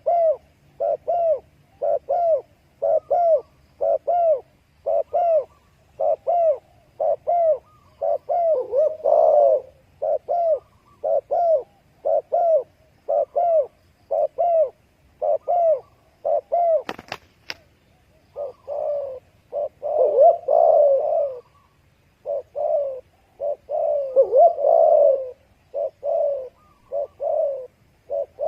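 Dove calling in short, arched notes repeated about twice a second. The calls break off briefly past the middle, where there is one sharp click, then resume.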